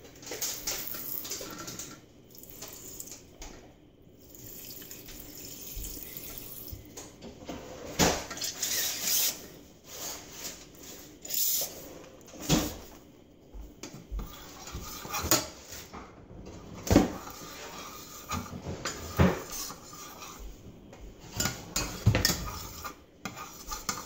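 A spoon clinking and scraping against a stainless steel saucepan in irregular knocks, with lemon juice squirted from a squeeze bottle into the pan.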